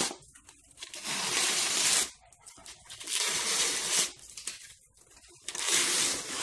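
Tape being peeled off a paint roller cover in three rasping rips of about a second each, lifting lint off the roller.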